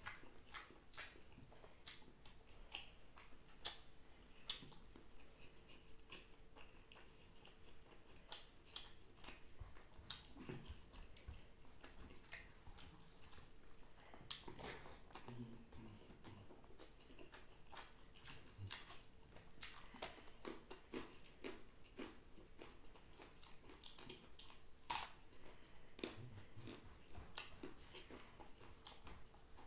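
Close-up eating sounds: fingers squelching and mixing rice and curry on a banana leaf, and mouth chewing, heard as scattered soft clicks and smacks, with one sharper click near the end.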